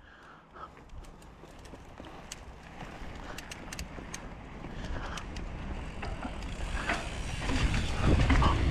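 Mountain bike setting off downhill on a dirt trail: scattered clicks and rattles from the bike at first, then tyre rumble and wind on the microphone building steadily as it picks up speed.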